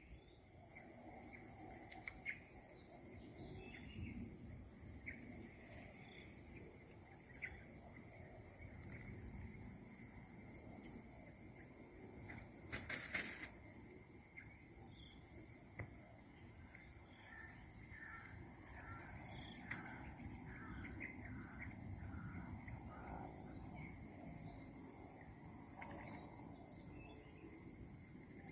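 Steady, high-pitched chorus of insects such as crickets or cicadas, with a run of short bird-like chirps about two-thirds of the way through and one brief knock about 13 seconds in.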